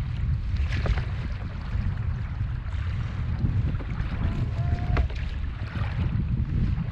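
Wind buffeting the microphone of a camera on a kayak at sea, with water sloshing against the hull and scattered small clicks and knocks.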